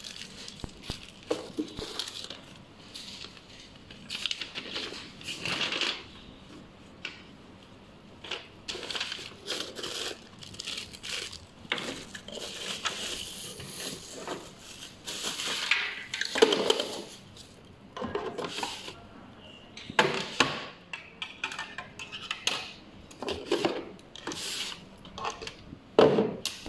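Packaging being handled: plastic bags and bubble wrap crinkling and rustling in irregular bursts, with sharp knocks and clatter of hard plastic parts set down on a table.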